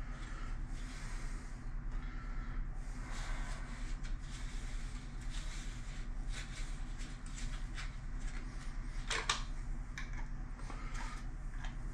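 Scattered small clicks, knocks and rustles of plumbing fittings and tools being handled, with one sharper knock about nine seconds in, over a steady low hum.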